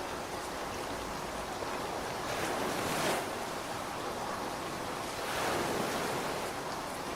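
Steady rain hiss that swells twice, about three seconds in and again near six seconds.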